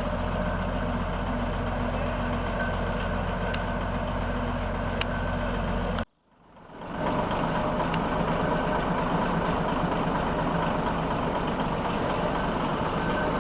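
Heavy engine of a vintage bulldozer running steadily. The sound cuts off abruptly about six seconds in and fades back in a second later, a little louder.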